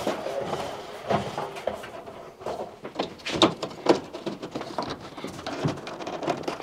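A scattering of light knocks and clicks from hands handling a tumble dryer's sheet-metal cabinet, drum and rear panel during reassembly.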